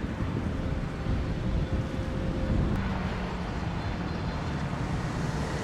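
Road traffic noise with wind buffeting the microphone: a steady low rumble with a faint engine hum in the second half.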